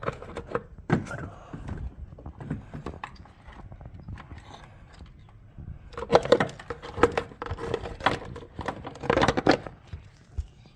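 Hand-handling noises in a car's engine bay: clicks, knocks and rustles of a plastic wiring-harness connector and its corrugated loom being moved aside, with two busier bursts of clicking about six and nine seconds in.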